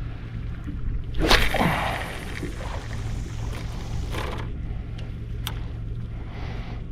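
A cast with a fishing rod: a sharp whoosh about a second in as the rod whips through the air, then a steady hiss of line running off the reel for about three seconds until it stops. A single sharp click follows later, over a low steady hum.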